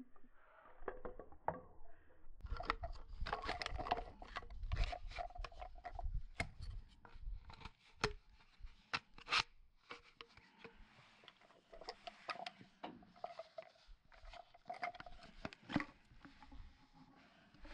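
Plastic pipe compression fittings and pipe being handled and pushed together by hand: irregular clicks and knocks of hard plastic with scraping and rubbing, busier from a couple of seconds in.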